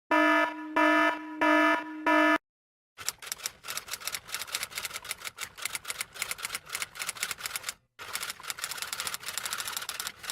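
Four short electronic beeps in quick succession, each a buzzy tone. After a brief silence comes rapid, typing-like clicking in two long runs with a short break between them.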